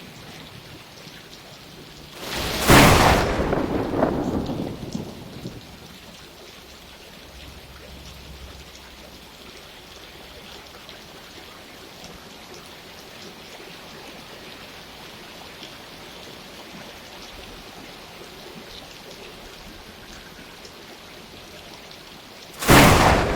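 Steady rain hiss with a sharp thunderclap about two seconds in that rumbles away over the next few seconds, and a second clap of thunder near the end.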